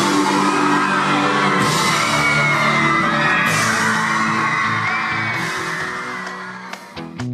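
Live pop-rock band playing loud, with cymbal crashes about every two seconds, under a crowd of fans screaming and cheering. The sound dies away near the end.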